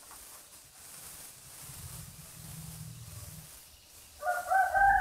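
Faint steady hiss with a low hum in the middle. About four seconds in, background music comes in.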